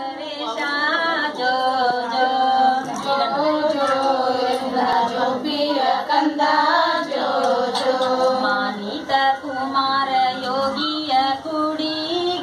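A group of women singing a Kannada jogula, a cradle lullaby, together.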